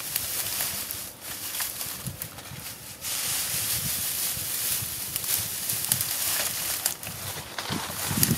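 Dry grass and dead leaves rustling and crackling as a large bundle of dry grass is handled and shoved into a debris hut, louder from about three seconds in.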